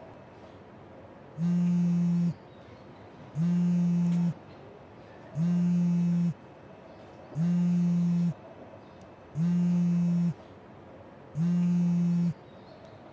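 Mobile phone signalling an incoming call: six steady, low one-second buzzes, evenly spaced about two seconds apart, starting about a second and a half in.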